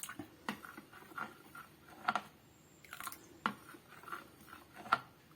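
A spoon stirring honey into hot kadha (herbal decoction) in a bowl: soft, irregular clinks and taps of the spoon against the bowl.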